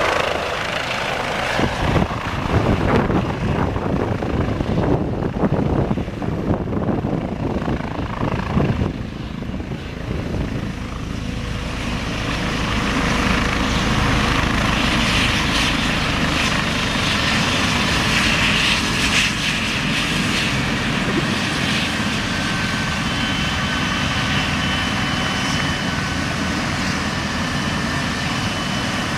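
Eurocopter EC135 P2 helicopter's twin turboshaft engines and rotors: gusty, uneven rotor noise as it comes in low and lands. After about ten seconds it settles into a steady run on the ground, with a high turbine whine in the second half.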